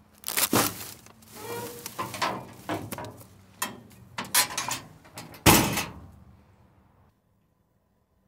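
Knocks and clattering as things are handled at the van, then a van door shut with a loud thunk about five and a half seconds in; the sound cuts off suddenly just after seven seconds.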